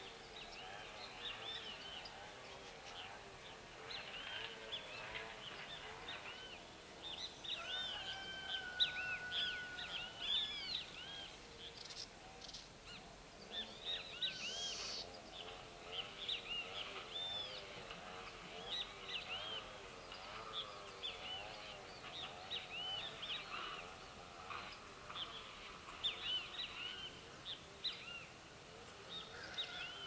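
A flock of small seed-eating birds chirping: many short, quick calls overlapping throughout, with one steady whistled note held for about two seconds a third of the way in.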